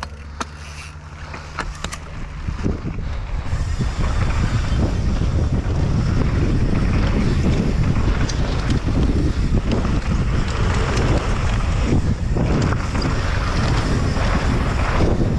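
Wind buffeting the microphone of a camera on a downhill mountain biker, with the rumble of knobby tyres on loose dry dirt, building over the first four seconds as the bike gathers speed and then holding steady and loud. A few sharp clicks come in the first two seconds.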